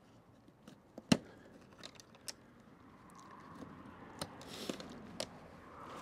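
An awning being handled and set up: a few sharp clicks and knocks of its poles and clips, the loudest about a second in, with a brief rustle of fabric near the end.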